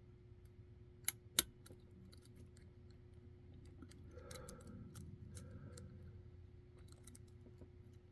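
Hook pick and top-of-keyway pry bar tensioner working the pins of a Kaba Kik lock cylinder: faint, irregular small metallic clicks and ticks, with two sharper clicks about a second in.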